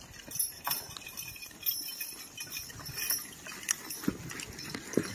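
A Percheron–Standardbred cross draft mare walking in snow in logging harness: irregular hoof steps with the clinking and jingling of harness metal fittings, and a few heavier knocks about four and five seconds in.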